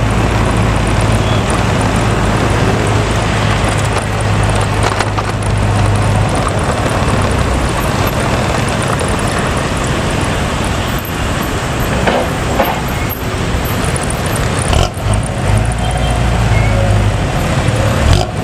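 Diesel intercity bus running with a loud, open, growling 'ngorok' exhaust amid road traffic. The low steady drone breaks up about six seconds in and comes back near the end.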